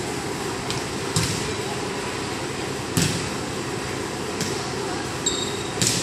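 Volleyball being passed in a rally: four sharp slaps of the ball off players' hands and forearms, about one every second and a half, the second loudest. Under them is a steady background hum, and a brief high squeak comes near the end.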